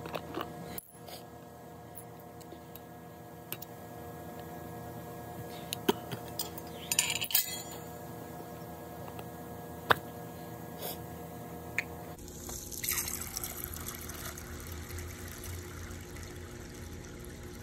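A few sharp clicks and knocks as the metal lid and rubber seal of a rock-tumbler barrel are worked off, over a steady hum. About two-thirds of the way through, water starts pouring into the barrel onto its rocks and plastic pellets with a steady rushing splash.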